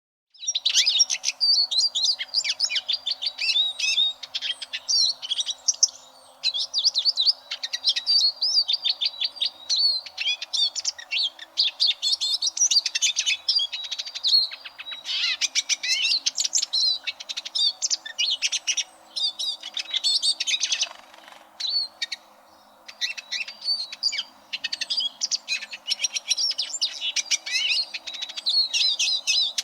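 Eurasian siskin singing: a fast, continuous twittering song of rapid high trills and chirps. It starts about half a second in and breaks off briefly about two-thirds of the way through before going on.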